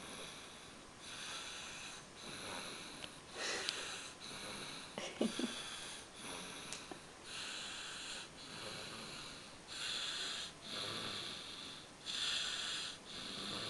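A sleeping baby snoring: noisy breaths about once a second, a few of them louder near the end.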